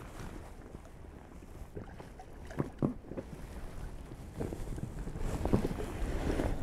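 Wind buffeting the microphone on a small boat at sea, with two sharp knocks about two and a half seconds in and irregular knocking and rustling that grows louder over the last couple of seconds.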